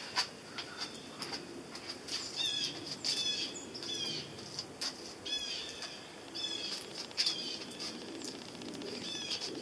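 Small birds calling: short chirps that slur downward in pitch, repeated at uneven intervals about once a second, with a few faint clicks between them.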